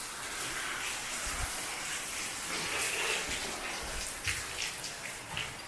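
Steady hiss of heavy rain, with a few faint low thumps.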